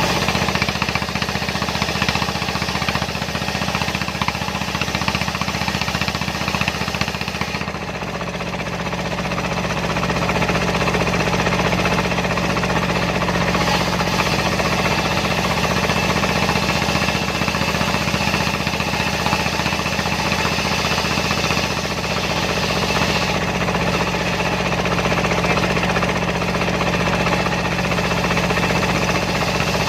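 Dongfeng single-cylinder diesel engine powering a homemade circular-saw mill, running steadily with a knocking beat. Its low-end sound shifts about eight seconds in.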